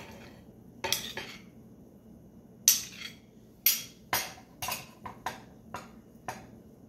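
Kitchen dishes being handled: a string of about a dozen sharp clinks and knocks at irregular intervals, as crockery and containers are picked up and set down.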